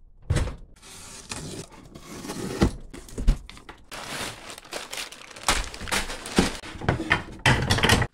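Cardboard shipping box being opened and unpacked by hand: tape and flaps pulled, crumpled kraft packing paper rustling and crinkling, with several sharp knocks and thuds of cardboard and wood being handled.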